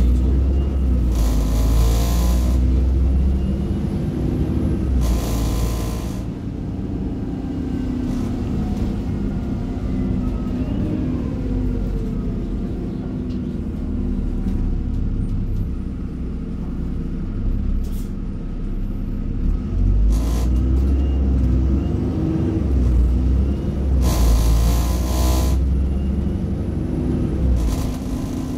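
Bus with a ZF automatic gearbox running under way, heard from inside: steady engine and road rumble, the engine note rising and dropping through gear changes. Three short loud air hisses, typical of the air brakes releasing, come about two seconds in, about five seconds in and near the end.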